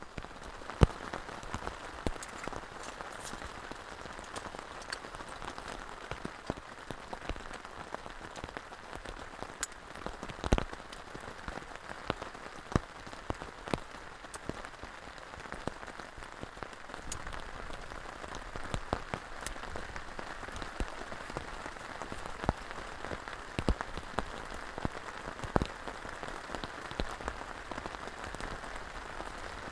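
Heavy rain falling on a tent and tarp: a steady hiss with scattered louder drops tapping close by.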